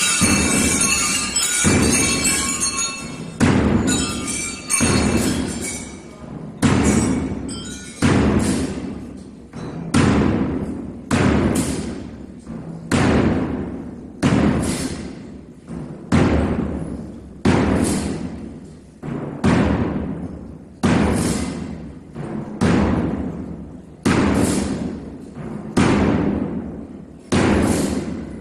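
Slow, steady march beat of a drum echoing through a church nave, the strokes alternating strong and weak with long reverberant tails. It follows a high, bell-like ringing in the first few seconds.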